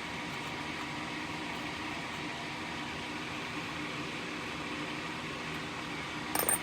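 Steady background hum and hiss, with a short sharp click near the end.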